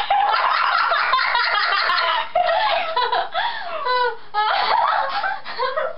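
Two girls in a fit of uncontrollable giggling laughter, with quick pulsing runs of laughs and rising and falling squeals.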